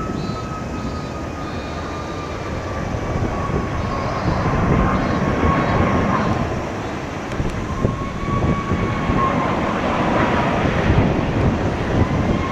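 Boeing 777-300 airliner on final approach with gear down, its twin turbofan engines giving a steady rumble with a high whine that wavers in pitch, growing a little louder near the end as the jet closes in.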